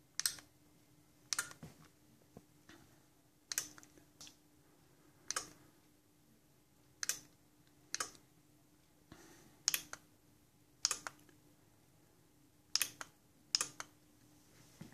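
Sharp clicks, singly or in close pairs every second or two, as the buttons of a handheld remote are pressed to switch smart tint film panels on and off, over a faint steady hum.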